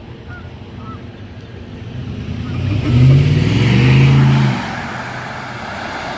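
A motor vehicle driving past: its engine note and tyre hiss swell to their loudest about three seconds in, then fade away after about four and a half seconds.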